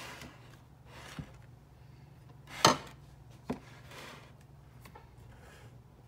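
Mixing bowls and a spatula handled on a kitchen countertop: a few scattered knocks and clatters, the loudest about two and a half seconds in and another about a second later.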